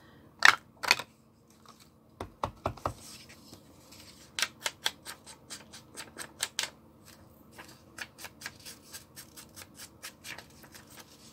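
A quick run of short, sharp clicks, about three or four a second, from hand work on the paper's edges, after two louder clicks at the start and a few dull knocks about two seconds in.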